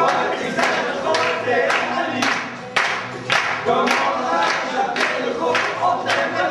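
A group of amateur voices singing a song together, with a sharp beat of claps or percussion about twice a second.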